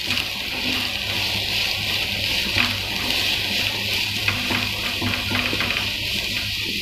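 Sliced onions sizzling in hot oil in a frying pan, stirred with a spatula, with a few light taps and scrapes of the spatula on the pan.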